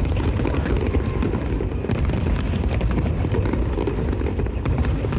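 Continuous fireworks barrage: overlapping booms run together into a steady rumble, with many sharp pops and crackles on top.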